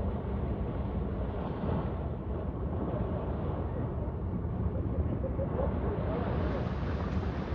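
Wind buffeting the microphone with a steady low rumble, over the wash of sea waves at the shore. The hiss grows a little brighter near the end.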